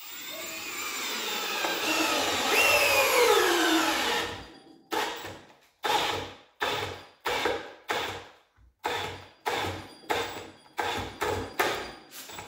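Milwaukee M18 compact brushless drill driver in speed 2 driving a long 7 1/4 inch screw into a wooden beam. The motor runs steadily for about four seconds, its pitch falling as it slows under load, then works in short bursts, about two a second: it is struggling to sink the screw in speed 2.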